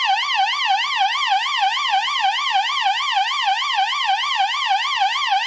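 Stylophone imitating a police siren: a buzzy tone sweeping evenly up and down, about four times a second, in a steady yelp.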